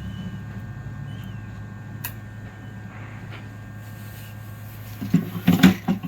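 Small repair tools clicking and scraping against a phone's circuit board during a charging-jack replacement, over a steady electrical hum. There is a sharp click about two seconds in and a short burst of loud scraping near the end.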